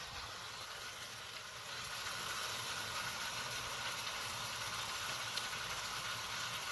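Tap water running steadily into a sink, a smooth even hiss.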